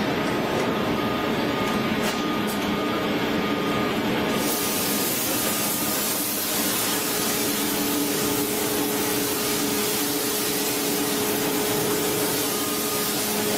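Crankshaft hot-forging press line running: a steady hiss over a machine hum of several steady tones, with no distinct hammer blows. About four seconds in the hiss turns brighter and fuller.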